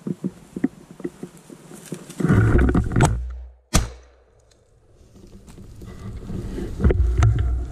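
Brush and dry bracken crackling, then a heavy rumble of movement through the cover, and a single sharp crack of a .410 shotgun shot just before four seconds in, after which the sound drops away for a moment. Rustling through the undergrowth builds again toward the end.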